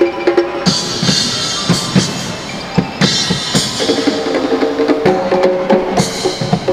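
Background music with a steady drum-kit beat under held instrumental notes.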